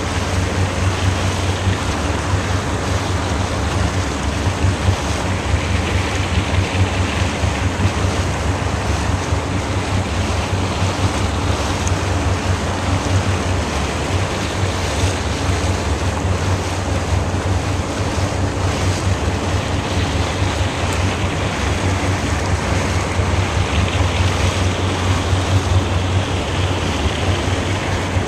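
A small boat's engine running steadily under way, a low drone under the rush of water along the hull and wind on the microphone.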